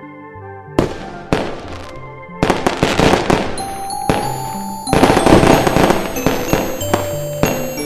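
Fireworks going off: a string of sharp bangs and crackling that starts about a second in and grows denser and louder in the middle, over background music with keyboard notes.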